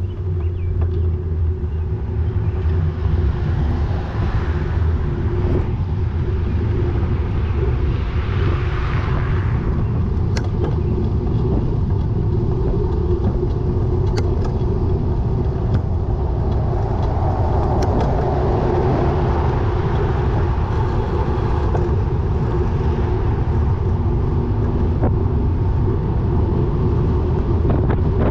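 Steady low rumble of wind and road noise while riding a bicycle along city streets, with a few swells as cars pass, the longest about 17 to 22 seconds in.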